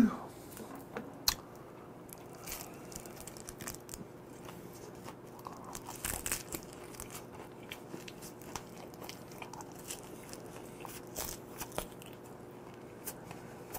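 Chewing and crunching of a whole grilled gizzard shad eaten by hand, with many small scattered crackles and clicks.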